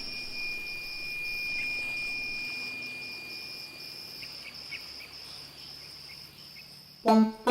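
Crickets chirping in a steady, high, pulsing trill, with a second, thinner steady tone that stops about four seconds in. Plucked music begins near the end.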